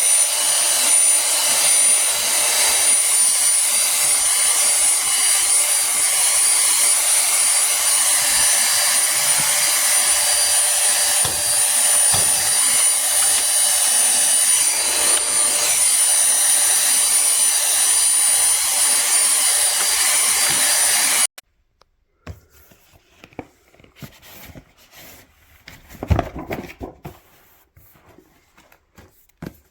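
Pemacom cordless handheld vacuum cleaner running steadily with a high-pitched whine, switched off abruptly about two-thirds of the way through. A few handling knocks and clicks follow, one louder knock among them.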